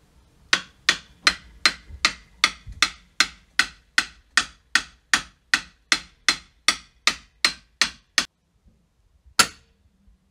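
A hammer striking in a steady rhythm, about twenty even blows at roughly two and a half a second, each with a short ring. After a pause comes one single, harder blow.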